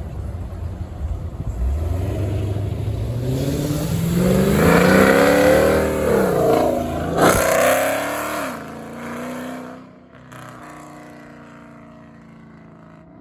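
Dodge Hellcat's supercharged 6.2-litre V8 pulling away under hard acceleration, its note rising steadily in pitch and loudness. A short sharp crack comes about seven seconds in, then the engine note falls and fades as the car drives off.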